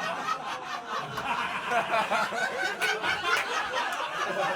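Audience laughing and chuckling at a comedy gig.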